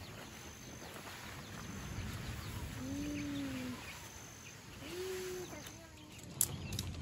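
Outdoor ambience with a low wind-like rumble. There are two low, drawn-out animal calls, one about three seconds in and a shorter one about five seconds in, over a faint high chirp repeating about once a second. A sharp click comes near the end.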